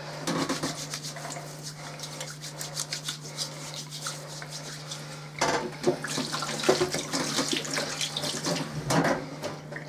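Hands being washed under a running tap into a stainless-steel sink: water splashing and hands rubbing, busier and louder in the second half. A steady low hum runs underneath.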